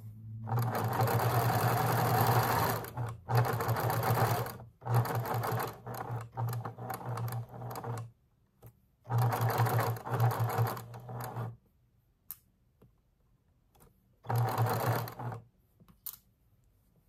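Electric domestic sewing machine stitching a seam through cotton patchwork, running in about five bursts of a few seconds each with short stops between. A couple of light clicks come near the end.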